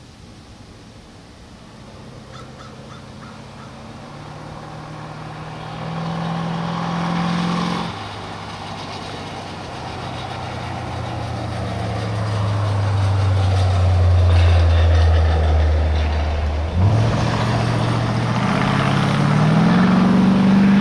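Loud Jeep engine pulling away and accelerating, growing louder. Its note climbs, drops sharply about 8 seconds in and again near 17 seconds as it shifts gears, then climbs again.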